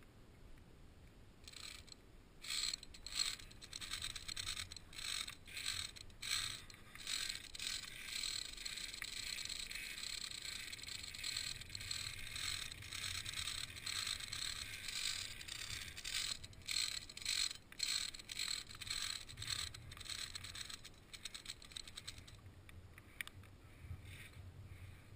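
Metal via ferrata carabiners scraping and clicking along a steel safety cable in rapid, irregular bursts, starting a second or two in and stopping a few seconds before the end.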